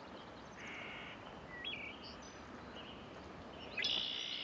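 Birds calling: a few short, separate calls with pauses between them, the loudest near the end, over a faint steady background hiss.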